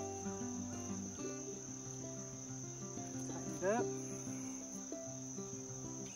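Steady high-pitched insect chorus over soft background music, with a short rising squeak about three and a half seconds in.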